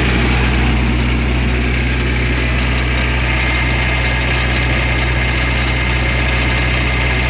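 Kubota combine's diesel engine running steadily at idle, with a thin high whine joining about three seconds in.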